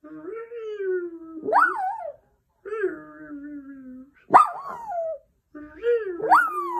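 Small shaggy dog 'talking' in four long, wavering vocal calls, each swooping sharply up in pitch and falling back.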